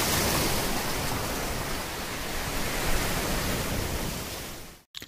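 A steady, even rushing noise with no tone in it, fading toward the end and then cutting off sharply.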